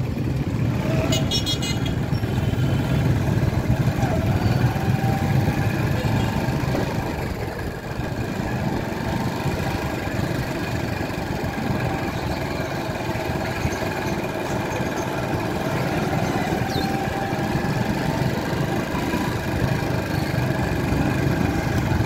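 Motorcycle engine running steadily on the move through busy street traffic, with a short vehicle horn toot about a second in.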